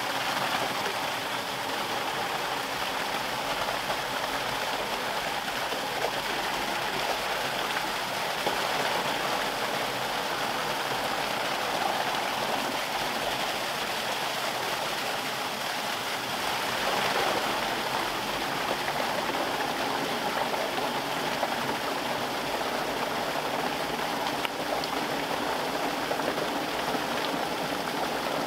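Pond water gushing out through an opened outlet and splashing down into a concrete drainage pit, a steady rush as the pond is being drained to lower its level.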